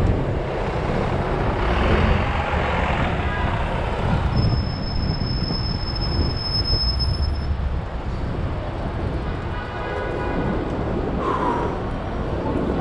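City street traffic heard from a moving bicycle: a steady low rumble of engines and road noise. About four seconds in, a high steady squeal sounds for about three seconds.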